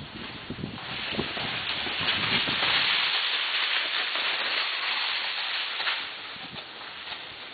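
A quarter horse's hooves striking the loose dirt footing of an arena as it is ridden past close by, with a rush of hissing noise that swells about a second in and fades about six seconds in.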